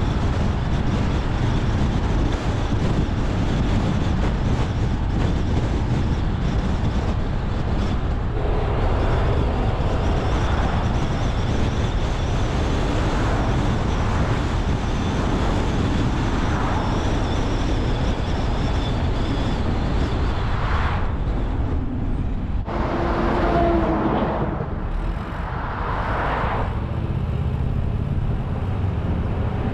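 Steady rumble of engine and tyre noise from a car driving along a road, with a few swells of louder road noise in the second half, the loudest about two-thirds of the way through.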